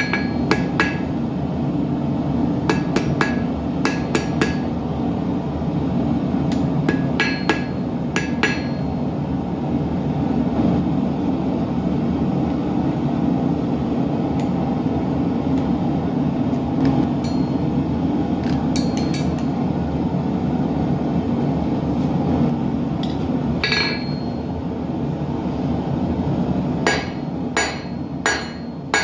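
Hand hammer striking a small piece of hot steel on an anvil to forge an arrowhead, in short runs of quick blows with pauses between, each strike ringing. Under it the steady rushing of a gas forge burner.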